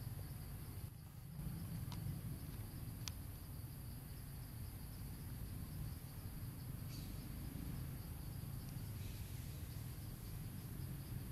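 Insects chirring steadily at a high pitch over a low, steady rumble of background noise, with a few faint clicks.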